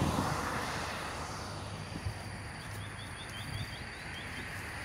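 Steady road and wind noise from travelling along a highway, loudest at the start. From about two and a half to four and a half seconds in, a bird gives a quick run of about ten short, high chirps.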